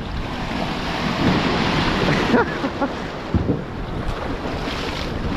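Surf breaking and washing along the hull of a small dinghy, with wind buffeting the microphone; the rush of water is heaviest in the first couple of seconds.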